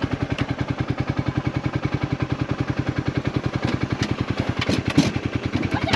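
An engine idling steadily with an even, rapid chugging of about ten beats a second, and a short knock about five seconds in.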